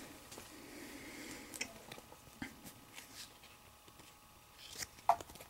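Faint rustling and light clicks of Pokémon cards and a foil booster pack being handled, with a sharper tap about five seconds in.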